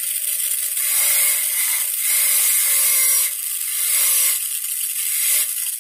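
High-speed dental air-turbine handpiece running with a loud high-pitched hiss, its bur cutting a depth orientation groove into a typodont premolar. The hiss swells and eases roughly once a second as the bur bears on the tooth.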